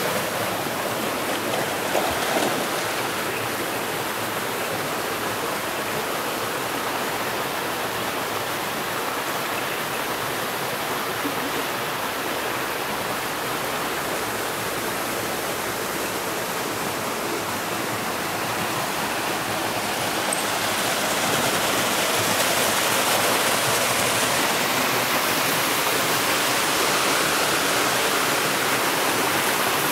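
River water rushing over small cascades in a rocky gorge, a steady noise that gets a little louder about two-thirds of the way through.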